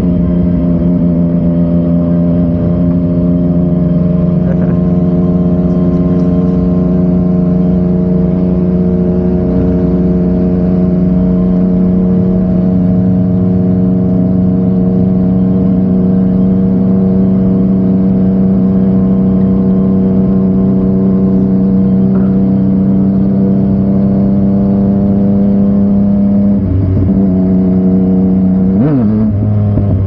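Yamaha MT-09's 847 cc three-cylinder engine breathing through an Akrapovic exhaust, running at steady revs for most of the stretch. Near the end the revs drop, rise sharply in a quick blip, then settle lower.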